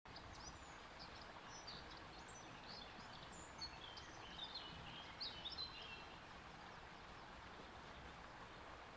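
Faint small-bird chirps and twitters, many short high notes in the first six seconds or so, over a faint hiss of background noise.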